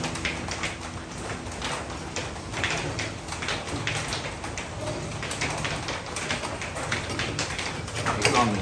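Light irregular clicks and taps of a kerosene hurricane lantern's metal frame and glass globe being handled, with a short sliding tone dropping in pitch near the end.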